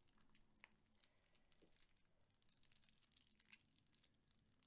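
Very faint crinkling with scattered small clicks, from hands handling slime and its plastic piping bags.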